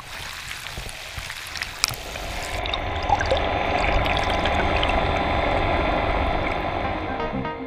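Muffled rush and gurgle of seawater as heard underwater, swelling up over the first few seconds, with two sharp clicks in the first two seconds.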